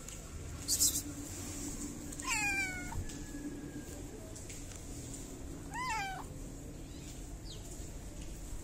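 A stray cat meowing twice, each call short and bending in pitch, about three and a half seconds apart. A short sharp noise comes just under a second in.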